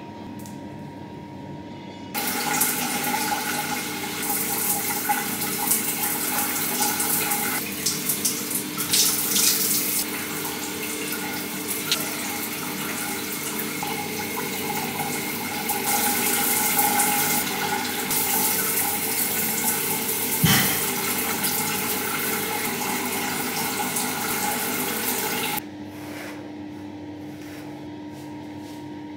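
Shower water running in a steady rush. It starts suddenly about two seconds in and stops near the end, over a steady low hum, with one sharp knock partway through.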